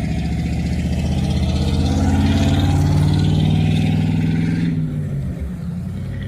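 A motor vehicle's engine running close by. It grows louder to a peak two to three seconds in, then drops away sharply about five seconds in, leaving a lower engine drone.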